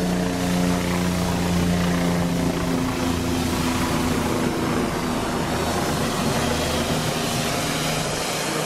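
Engine-driven pressure washer running steadily, its engine drone under the loud hiss of the high-pressure water jet blasting the truck's paintwork.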